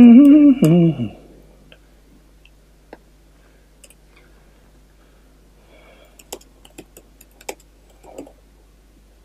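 A man's brief drawn-out vocal sound at the start, then scattered keystrokes on a laptop keyboard: a couple of single taps, then a quicker run of several near the end.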